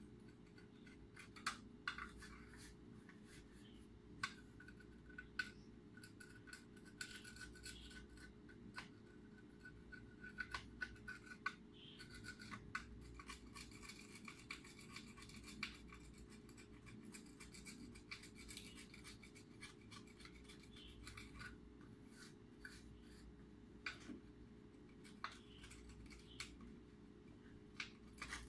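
Quiet, irregular clicks, snips and scratching of hands working thin electrical wires with small tools, as when cutting and stripping LED wiring, over a low steady hum.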